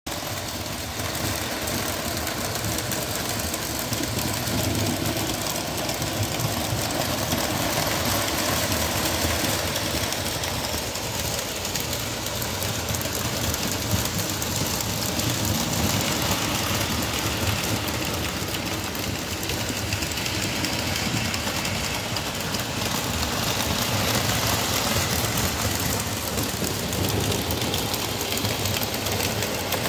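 Lionel electric model trains running on tubular three-rail track: steady running noise of the locomotive motors and wheels on the rails.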